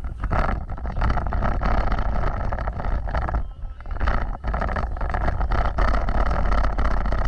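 Off-road vehicle driving over rough ground: a steady deep rumble of engine and tyres, with many short knocks and rattles and some wind noise.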